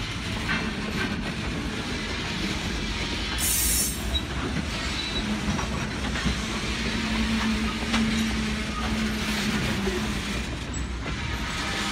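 Freight train cars rolling past: a steady rumble of steel wheels on the rails with occasional clicks at the rail joints. A short hiss comes about three and a half seconds in, and a low steady tone sounds for a few seconds in the second half.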